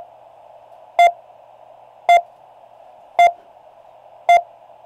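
An avalanche transceiver's 457 kHz transmit pulses received on an Icom IC-706 HF radio in CW mode. Each pulse comes through the radio's speaker as a short beep, about one a second and five in all, over a steady band of receiver hiss.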